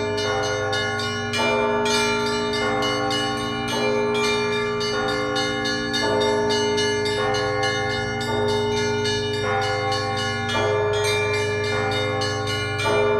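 Russian Orthodox monastery bells ringing a zvon. Small bells are struck rapidly, several times a second, over larger bells struck about once a second, their ringing overlapping into one continuous sound with a steady low hum beneath.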